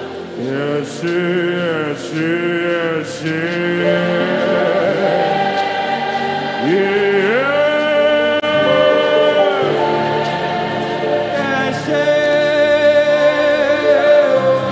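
Slow worship music: a singing voice holds long, wavering notes and slides between pitches over sustained chords, with a choir-like blend of voices.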